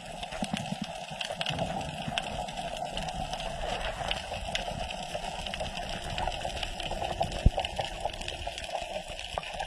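Underwater ambience: a steady watery hiss with scattered faint sharp clicks, and one louder click about seven and a half seconds in.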